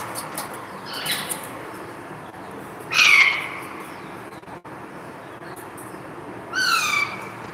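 Alexandrine parakeet giving three short, harsh squawks, each sliding down in pitch: a weaker one about a second in, then two loud ones around three seconds and near the end.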